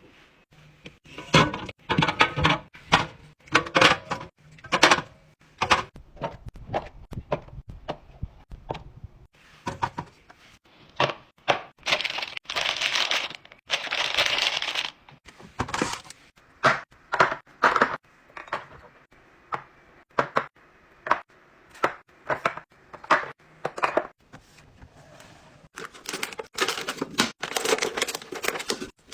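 Containers and food packaging being handled and set down: a quick, irregular run of clicks, knocks and crinkles, with a couple of seconds of steadier rustling noise a little before halfway.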